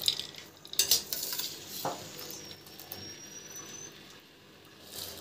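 A steel wire skimmer clinks against a steel pot and bowl as blanched peas are scooped out and moved into iced water. There are a few sharp clinks in the first two seconds, then only quieter scraping.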